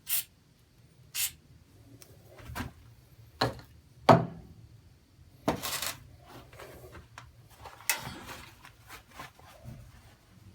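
Scattered knocks, clatters and rubbing of tools and objects being handled and set down in a workshop, the loudest knock about four seconds in, with a short hiss lasting about half a second at around five and a half seconds.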